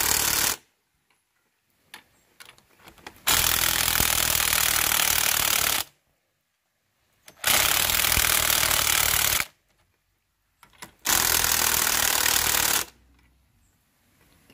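Bosch cordless impact driver hammering as it turns the threaded rods of a coil spring compressor on a shock absorber's coil spring. The end of one run is heard as the sound opens, then three more runs of about two seconds each, with short pauses and small clicks between them as the socket is moved between rods.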